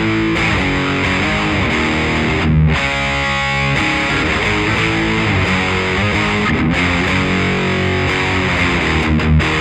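Electric guitar played through an original late-1980s Marshall The Guv'nor overdrive pedal: gritty overdriven riffing, with one chord held for about a second near the middle and a few short, sharply muted stops.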